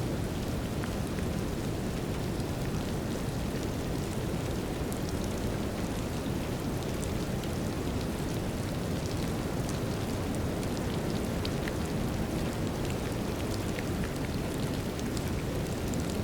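Steady brown noise, a deep, even hiss, layered with light drizzle whose scattered raindrop ticks patter through it.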